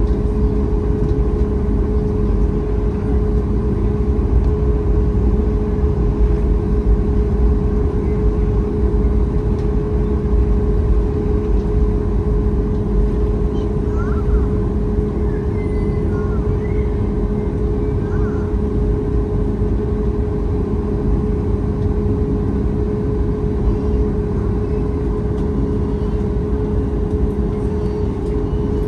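Steady cabin noise of a Boeing 737 MAX 8 taxiing, its CFM LEAP-1B turbofan engines running at low thrust: a constant hum with a steady tone over a low rumble, heard from a window seat over the wing.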